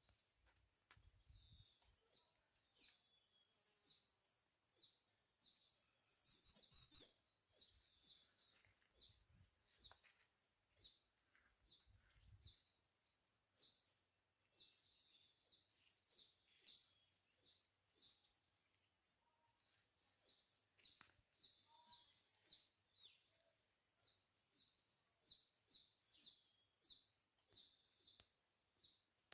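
A small bird repeating a short, high chirp about one and a half times a second, faint and steady, with a brief higher twittering about six seconds in.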